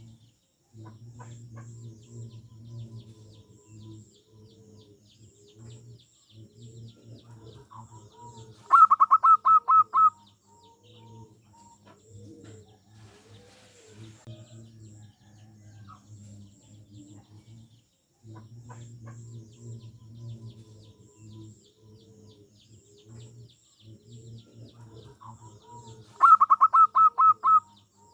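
Zebra dove singing: two loud phrases of rapid, high staccato cooing notes, one about nine seconds in and one near the end, over softer low cooing that goes on throughout.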